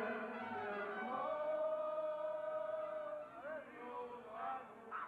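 A man singing into a handheld microphone, holding one long note for about two seconds, then going on in shorter phrases.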